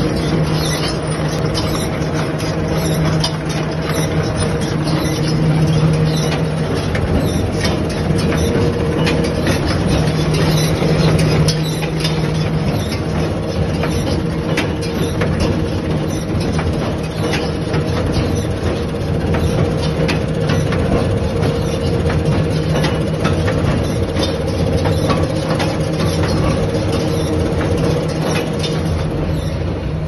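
Claas 2200 square baler running, driven off a tractor's PTO shaft: a steady mechanical clatter of the pickup and drive with a constant hum underneath.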